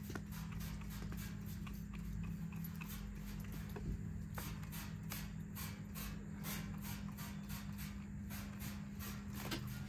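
Trigger spray bottle of Super Clean degreaser squeezed over and over, a quick run of hissing squirts, about three a second, that grows louder and more regular about halfway through. A steady low hum runs underneath.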